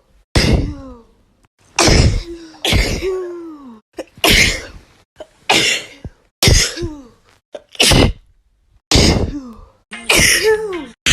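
A string of about nine sneezes, one after another roughly a second apart. Each is a sudden sharp burst that ends in a short cry falling in pitch.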